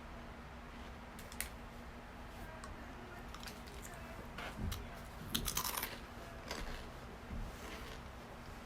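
Okaki rice crackers being bitten and chewed close to the microphone: scattered sharp crunches, bunched most densely about five and a half seconds in.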